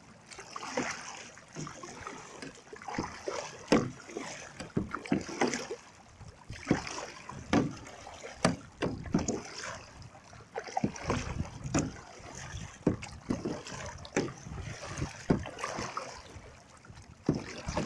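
Double-bladed kayak paddle strokes: repeated, irregular splashes and drips about once a second as the blades dip and pull through the water, with water washing along the kayak's hull.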